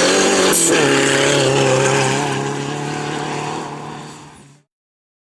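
Rally car engine running hard at high revs, with a short break in the note about half a second in after which the revs climb again. The sound then falls away as the car moves off and stops abruptly near the end, leaving silence.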